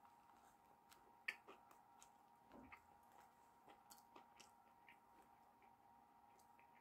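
Faint chewing of a mouthful of fried chicken sandwich, with scattered soft mouth clicks and one sharp click about a second in, over a faint steady hum.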